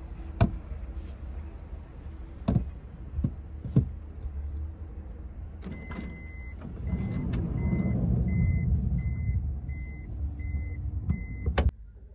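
A vehicle's reversing beeper beeping steadily at a high pitch, about every 0.6 s and about eight times, over engine rumble that swells while it backs. Before it, a few sharp clicks over a low rumble.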